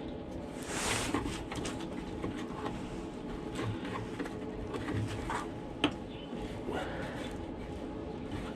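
Hands working a plastic wiring plug onto a GM E85 flex-fuel sensor: rustling and small plastic clicks, with one sharper click about six seconds in.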